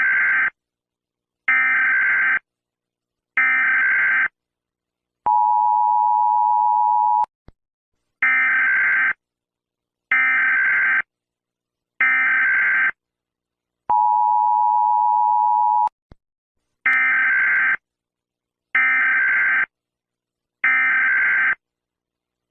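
Emergency Alert System header data bursts, three short buzzy bursts at a time, each group followed by a steady two-second two-tone attention signal. The pattern repeats three times, the last attention tone starting at the very end.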